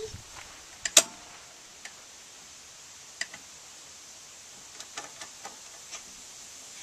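Scattered sharp clicks and taps from the dashboard controls of a Kubota compact tractor being handled by small hands: one loud click about a second in, a single one near three seconds, and a small cluster around five seconds, over a faint steady hiss.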